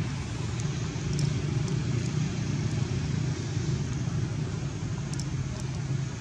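Steady low background rumble with a fainter hiss above it, unchanging throughout.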